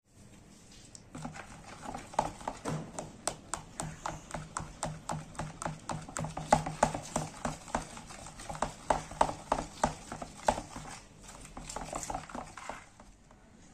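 A steel spoon beating thick egg batter in a plastic bowl, knocking against the bowl about two to three times a second; the knocking stops near the end.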